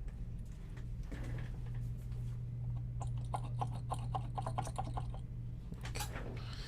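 A rapid run of small ticks, about eight to ten a second, lasting roughly two and a half seconds in the middle, over a steady low electrical hum.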